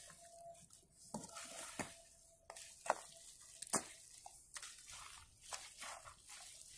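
A hoe chopping and turning thick wet brick-making mud of clay and soil, with squelches as bare feet step into it: irregular wet scrapes and soft knocks, roughly one every half second to a second.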